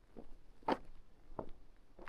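Footsteps of a person walking, three steps about two thirds of a second apart, the middle one the loudest.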